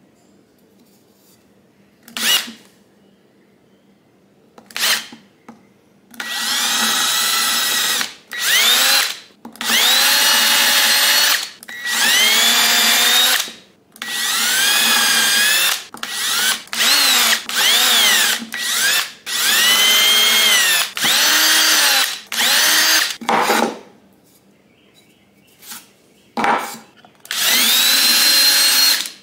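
Cordless drill boring into a wooden block in many separate trigger pulls. Each run's motor whine rises in pitch as it spins up and falls away when released. Two short blips come first, then a dozen or more runs up to about two seconds long.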